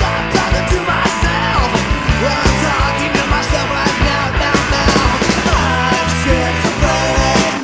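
Loud rock music in a punk or grunge style, with a steady pounding drum beat; it breaks off briefly right at the end.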